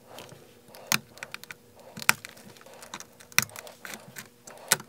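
Shattered iPhone 12 back glass cracking and crunching as a blade pries it off the frame: a string of sharp snaps and small clicks, four of them louder, about one a second.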